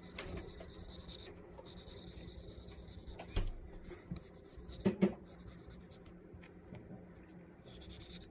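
Kitchen knife scoring raw abalone flesh on a paper-towel-covered cutting board: soft, repeated scraping strokes, with a few light knocks, two close together about five seconds in.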